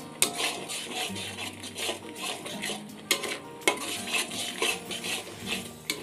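A spatula stirring and scraping thick masala paste around a metal kadai, in repeated scraping strokes about two a second.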